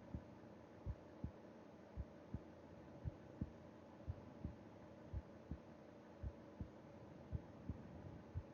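Human heartbeat heard up against the chest during sleep: a slow, steady lub-dub, about eight beats, each a pair of low thumps, roughly one beat a second, over a faint steady hum.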